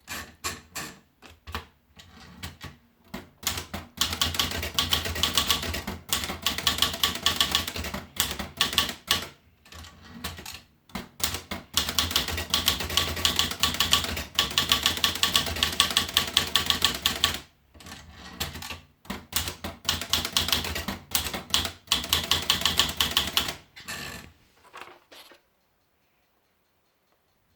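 Olivetti Dora manual portable typewriter being typed on: rapid runs of sharp keystrokes with a few short pauses, stopping near the end.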